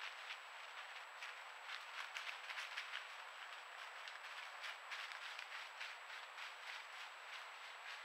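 Coyote's footsteps rustling through dry leaf litter: a string of soft, irregular crackles that thin out as it walks away.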